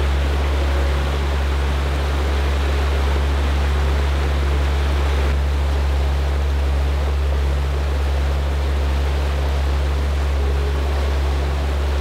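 Rushing water of a mountain stream, a steady loud rush with a deep low rumble underneath.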